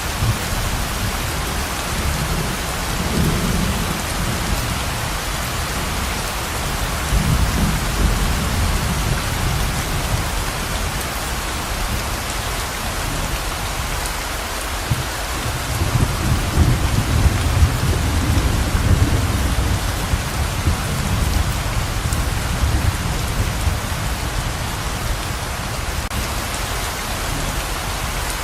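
Heavy pouring rain, a steady dense hiss, with low rolling thunder swelling up several times underneath.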